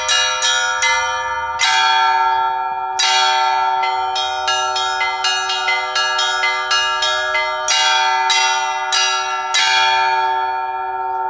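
Russian Orthodox church bells ringing a festive peal: small bells struck in quick succession over the long ring of the bigger bells, with a heavier stroke every few seconds. The last strokes come about ten seconds in and are left to ring out and fade.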